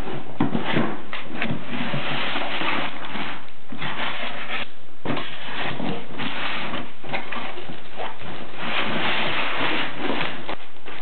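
Cardboard rubbing, scraping and sliding as a carton and the box inside it are opened by hand, in several stretches with short pauses. Near the end the plastic wrap inside the box is handled.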